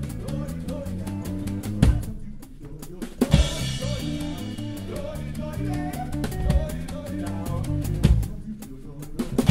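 Live band music led by a drum kit: steady hi-hat ticks over a moving bass line, with loud kick-drum hits a few times and a cymbal crash about three and a half seconds in.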